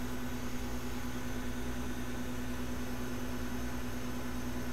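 Steady hum and fan noise from microsoldering bench equipment, with one held low tone and no change throughout.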